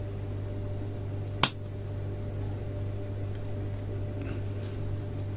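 Steady low electrical hum from the powered control board, with one sharp switch click about a second and a half in as a switch on the board is flipped.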